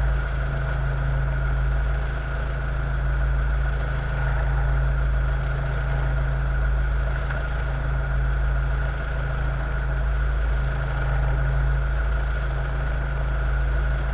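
Towboat's outboard engines idling steadily with a low rumble.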